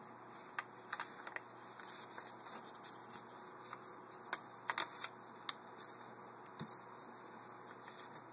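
A sheet of paper rustling and crinkling as one hand folds it and presses the creases flat: faint, irregular crackles and light taps.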